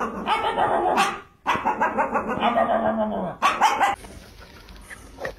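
Small shaggy dog barking and whining in a run of loud, pitched, wavering calls, with a short break about a second in, cutting off about four seconds in.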